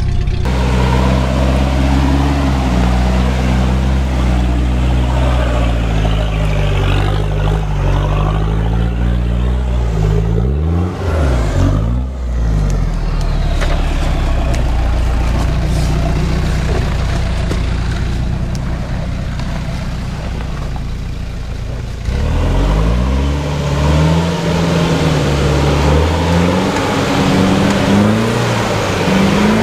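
Off-road 4x4 engines revving and labouring under load in low gear, the engine note repeatedly rising and falling, with abrupt breaks about eleven seconds in and again about two-thirds of the way through.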